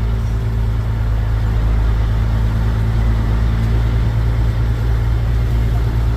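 Grain truck's diesel engine running steadily, a low even hum.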